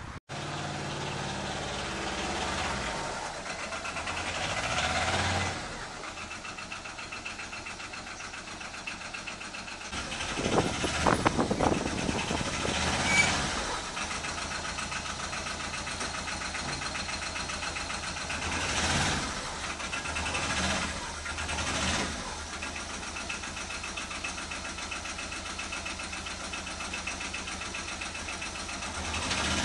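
Quad bike (ATV) engine running at idle, rising in level several times: around five seconds in, again for a few seconds around eleven to thirteen seconds, and around nineteen to twenty-two seconds.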